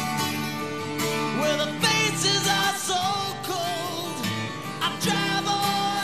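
Background music: a country-style song with guitar and a singing voice.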